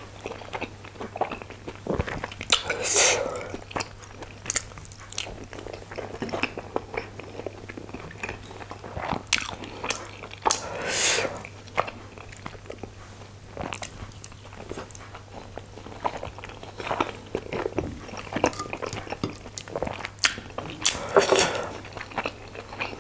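Close-miked chewing of steamed chicken momo dumplings in tomato chutney: soft wet mouth sounds, lip smacks and small clicks, with a few louder, longer wet bursts spread through. A faint steady low hum runs underneath.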